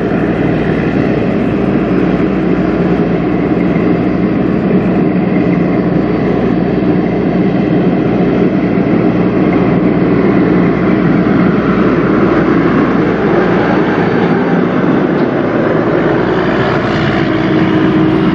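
Diesel engine of a Peterbilt semi truck hauling a loaded grain trailer, running with a steady note as the truck approaches, passes and pulls away.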